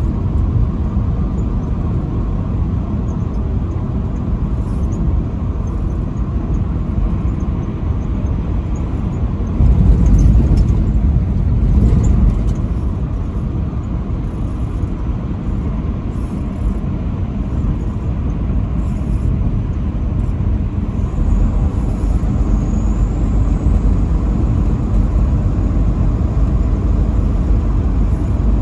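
Steady low rumble of a truck driving on the highway, swelling louder for a few seconds about a third of the way in.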